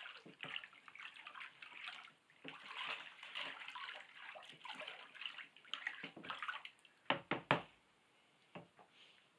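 Water sloshing and swirling in a plastic tub as a stick stirs a hide-tanning solution, with a couple of sharp knocks about seven seconds in.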